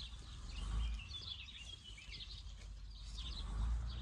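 Small birds chirping and twittering over a low, uneven rumble that swells twice, taken for a distant tractor working.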